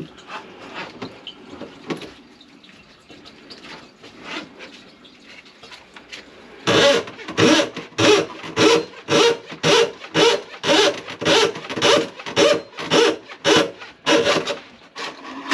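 Grease-clogged kitchen sink drain being worked to clear it: faint clicks and knocks, then about seven seconds in a loud, regular series of strokes, about two a second, each with a hollow tone and a hiss.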